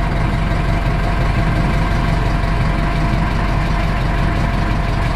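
Boat engine running steadily as the boat moves along, a low hum with a rapid, even throb that does not change, heard from inside the cabin.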